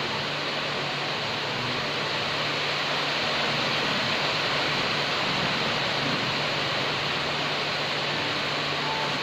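Steady rain, an even hiss that does not let up, with a low steady hum underneath.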